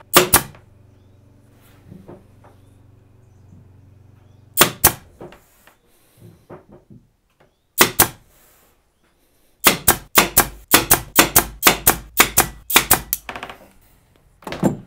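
Air-powered pin nailer firing 0.6 mm pins into plywood, each shot a sharp snap. Single shots near the start, around five seconds and eight seconds in, then a rapid run at about four shots a second, and one more near the end.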